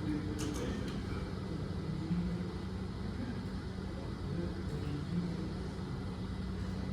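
Canon TS3440 inkjet printer running its deep-cleaning cycle: a steady low mechanical hum and rumble, with a few faint clicks about half a second in.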